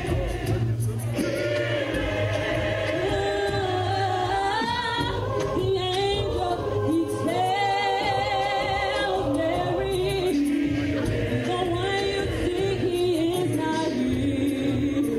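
Gospel choir singing a cappella, with a woman leading on a handheld microphone over the full choir. The voices are held and wavering.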